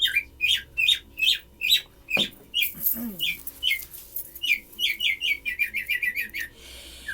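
A bird singing loudly, a long run of repeated chirps that each drop sharply in pitch, coming faster into a rapid trill from about five seconds in.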